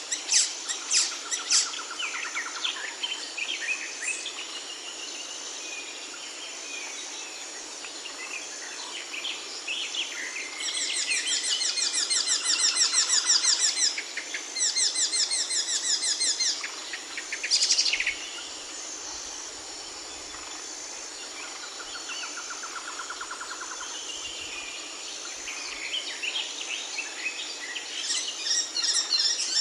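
Several songbirds chirping and calling, with rapid trills about a third of the way in and a sharp whistle a little past the middle, over a faint, evenly pulsing high tone.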